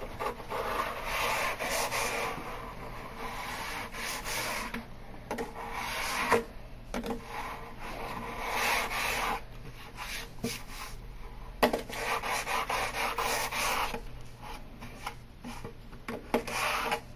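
Sandpaper edge-breaking tool (a fast break) rubbed along the edge of a peel-and-stick edge band to bevel it. The sanding strokes come in runs with short pauses between, and a few light knocks.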